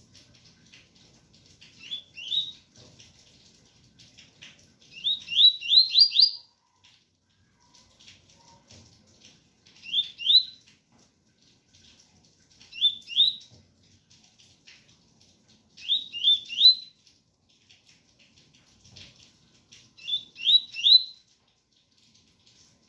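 Double-collared seedeater (coleiro) singing its 'tui-tui' song: short phrases of two to four quick rising notes, repeated every three to four seconds. Faint rain runs underneath.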